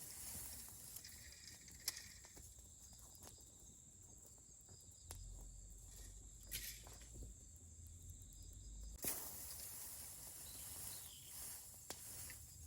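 Dried cut weeds burning in an open fire, crackling with scattered small pops over a faint hiss, and a couple of louder snaps about two seconds in and again about nine seconds in.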